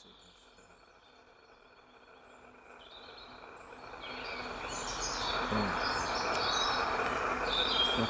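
Wild songbirds chirping and singing, with a rushing noise that builds from about halfway through and is loud near the end.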